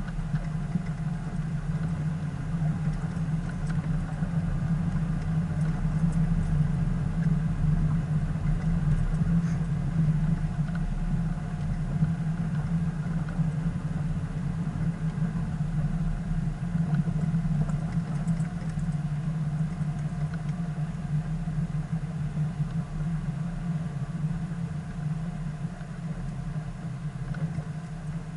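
Vehicle engine running steadily at low speed while the vehicle drives along a sandy dirt track, heard from inside the cab.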